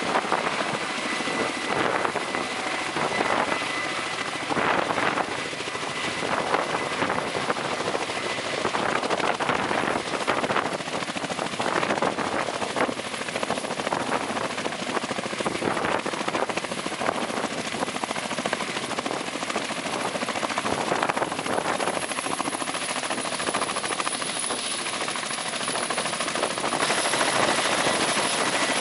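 Kamov Ka-32 coaxial-rotor helicopter running close by, hovering low and then sitting on the pad: a loud, steady rush of turbine and rotor noise that grows louder near the end.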